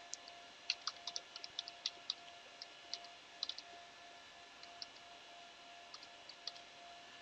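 Faint computer keyboard keystrokes: irregular clicks in uneven clusters, busier in the first half, over a faint steady hum.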